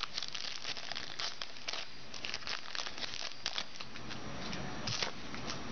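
Football trading cards and their foil pack wrapper being handled, making crinkling and rustling with runs of small crackles that come thickest near the start and again about five seconds in.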